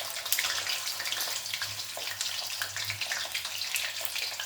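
Sausages sizzling as they shallow-fry in a little cooking oil over low heat: a steady hiss dotted with fine crackles and pops.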